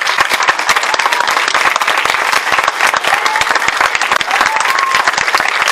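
Audience applauding: many people clapping fast and densely, loud and even throughout.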